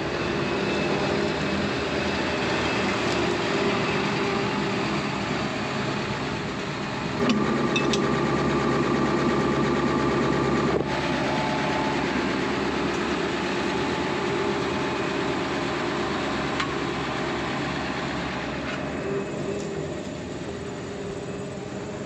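Claas Jaguar 840 self-propelled forage harvester running while chopping corn for silage, its engine and cutting machinery a steady mechanical noise. About seven seconds in it grows louder, with a steady whine added for a few seconds, then eases back.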